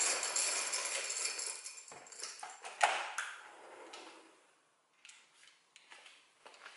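Roller blind being raised by its side chain, a rustling rattle lasting about two seconds. Then a single sharp knock just before three seconds in as the glass sliding door is opened, and a few faint ticks after.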